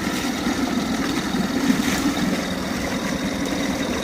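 2009 Mercury 20 hp outboard motor idling steadily in forward gear, its rebuilt lower unit running okay.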